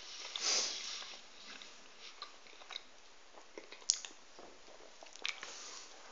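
A person chewing a mouthful of doughnut, with a short rush of breath about half a second in and a few sharp clicks later on.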